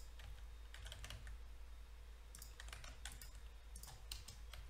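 Faint, irregular clicking of computer keys, several scattered keystrokes, over a steady low hum.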